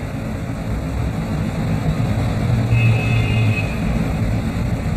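Steady low rumble of distant traffic, with a low hum that swells for about a second around three seconds in.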